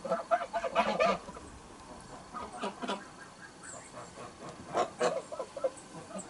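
Domestic geese calling in three bursts of short honks and cackles, loudest at the start, again a little before the middle and about five seconds in.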